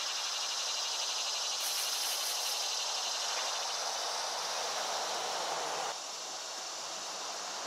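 Steady outdoor background of insects chirring over a hiss, dropping a little in level about six seconds in.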